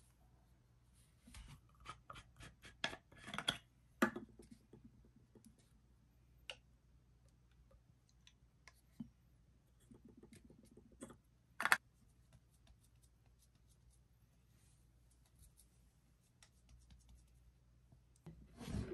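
Quiet handling sounds of a plastic lotion bottle and a cotton pad: a quick run of clicks and taps in the first few seconds, a single sharp click about two-thirds of the way through, and faint rubbing in between.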